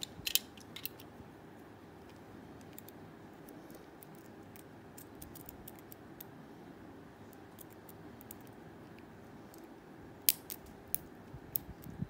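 Steel lock pick and tension wrench working in the keyway of a Blossom 50mm padlock: scattered small, sharp metallic ticks and clicks, a quick cluster near the start and the loudest ones about ten seconds in.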